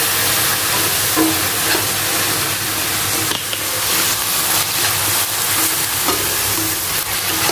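Sliced papaya sizzling as it is stir-fried in oil and soy sauce in a stainless steel wok, with a metal spatula scraping and knocking against the pan as it turns the strips.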